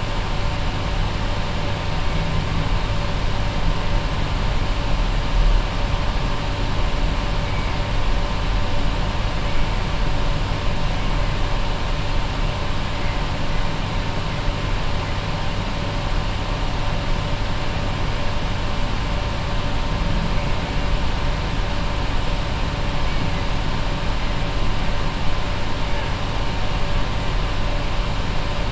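Steady mechanical hum with an even hiss and a few faint steady tones, like a fan or air conditioning running, with no distinct knocks or clicks.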